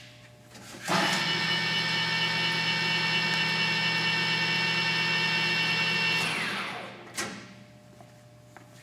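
Colchester 13x40 geared head lathe spindle starting about a second in and running at a steady speed, its geared headstock giving a steady whine with many tones. Near six seconds in it winds down within about half a second, followed by a single click.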